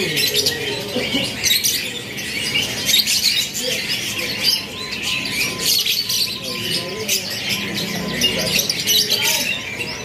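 Many caged canaries singing at once: an unbroken tangle of rapid trills, twitters and warbles.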